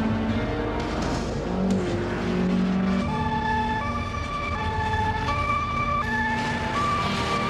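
Two-tone sirens of emergency vehicles, several overlapping, each alternating between a high and a low note; they come in about three seconds in. Before that there is the low running hum of a car engine.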